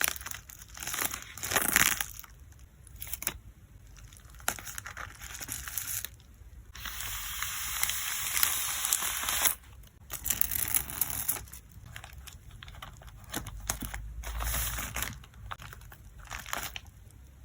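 Plastic sleeves and packing material crinkling and rustling in irregular bursts as photocards are handled and packed. A longer continuous rustle runs through the middle.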